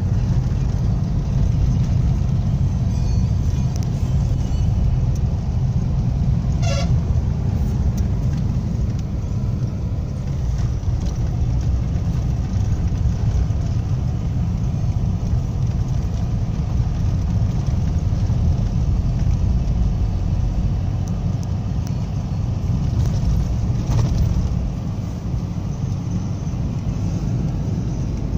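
Steady low rumble of a moving vehicle's engine, road and wind noise, with a brief horn toot about seven seconds in.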